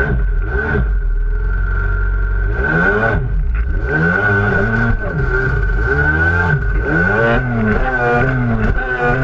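Sea-Doo XP's big-bore 920cc two-stroke twin with a tuned pipe running low and steady, then opened up about two and a half seconds in. Its pitch then swings up and down over and over, roughly every three-quarters of a second, as the watercraft gets under way.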